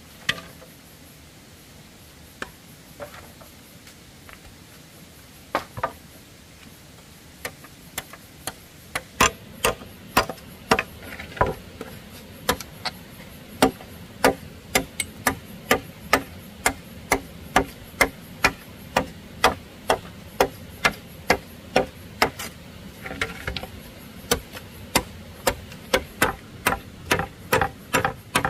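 Machete chopping at split bamboo: a few scattered strikes at first, then from about a third of the way in a steady run of sharp knocks, about two a second.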